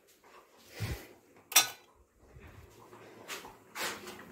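Kitchen dishes and utensils being handled and set down: a few separate knocks and clatters, the sharpest a clack about a second and a half in.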